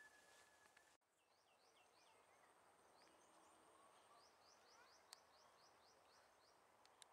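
Faint field ambience: birds calling in a long run of short, quick, falling chirps over a thin steady high tone and light hiss. There is a single sharp click about five seconds in.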